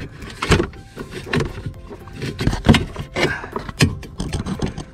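Irregular clicks and knocks of hard plastic parts and a wiring connector being handled under a car's dashboard, while the blower motor's wiring is being reconnected.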